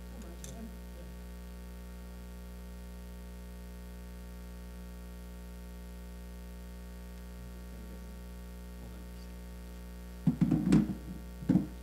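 Steady electrical mains hum from the sound system. Near the end come two loud, short bumps and rustles as a plaque and papers are handled at the podium by its microphone.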